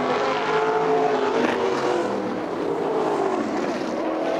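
Winged sprint cars' V8 engines racing on a dirt oval, several engines overlapping, their pitch rising and falling as the cars power through the turns and pass.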